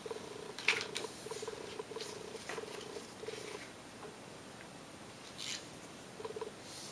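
Fingers sliding along and pressing creases into a sheet of origami paper: a run of short, faint rubbing strokes with a few sharper paper rustles.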